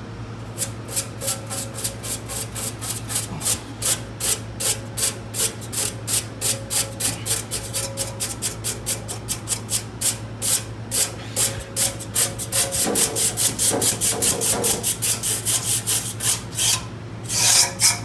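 A brush scrubbing dust out of the fins of a walk-in cooler's condenser coil, in quick repeated scraping strokes about three a second that come faster near the end, with one longer, louder stroke just before it stops. The coil is caked with dust, which was driving the unit's high head pressure. A steady low hum runs underneath.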